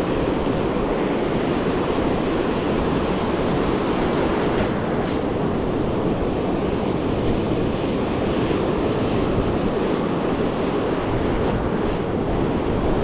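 Ocean surf breaking and washing in, a steady rush of water, with wind buffeting the microphone.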